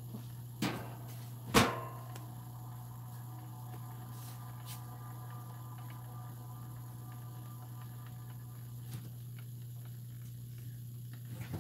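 Steady low hum of a motorized display turntable slowly rotating a model car, with two knocks in the first two seconds, the second louder and ringing briefly, and a few faint ticks.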